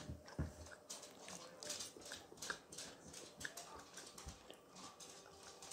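Quiet eating sounds close to the microphone: chewing, with scattered soft mouth clicks and smacks.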